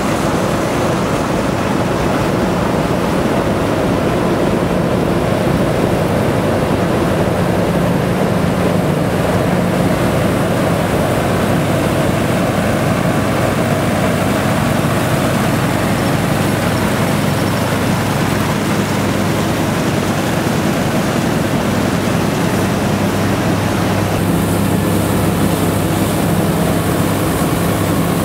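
Several Nuffield tractors pulling trailed Dronningborg combine harvesters, running steadily while harvesting wheat: engines and threshing machinery together. The hiss grows brighter about 24 seconds in.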